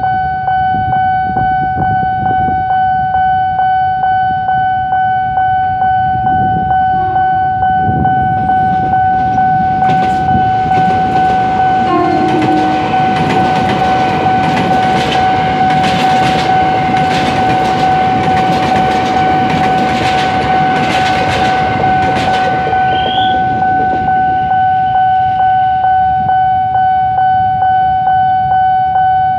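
Level crossing warning alarm sounding a steady pulsing tone throughout, while an electric commuter train (KRL) passes through the crossing, its wheels clattering over the rails. The train noise swells about eight seconds in, is loudest for some twelve seconds in the middle, and fades away near the end.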